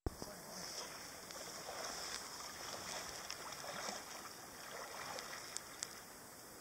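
Faint water sounds of a kayak being paddled up a calm, narrow creek, with a steady hiss and a few small clicks.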